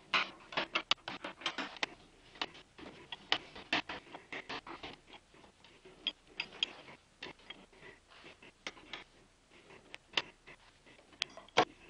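Irregular clicks, taps and short scrapes as a plywood donut jig with carriage bolts is handled and adjusted on a wood lathe, busiest at the start with a sharp click near the end.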